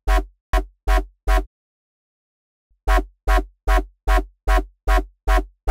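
A Serum synth dubstep bass patch (an FM triangle wave with sub, noise layer and an LFO-swept high-pass filter) auditioned as short repeated notes, about two and a half a second, each with a deep sub under it and a quick decay. It plays four notes, pauses about a second and a half, then plays eight more.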